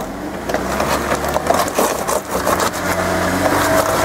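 Jeep Wrangler engine pulling under load at crawling speed, its pitch stepping up near the end, while the tyres crunch and scrape over rocks.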